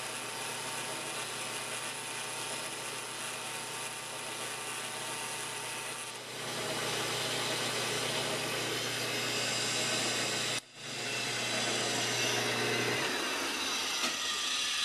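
Atlas 10-450 tool post grinder's motor running at high speed, its small mounted wheel grinding the inside of a 5C collet adapter while the Grizzly G0709 lathe turns the part. The sound is a steady mechanical whine with a hiss. About six seconds in it grows louder and changes. Near the end the low hum stops and the whine falls in pitch as the machinery winds down.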